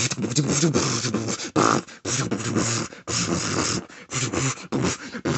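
A person beatboxing: a fast, choppy run of hissy mouth sounds mixed with low voiced notes, broken by short pauses between phrases.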